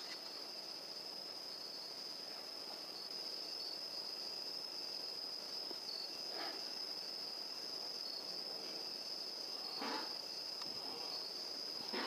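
Crickets trilling in one steady high note, with two faint short sounds about six and ten seconds in.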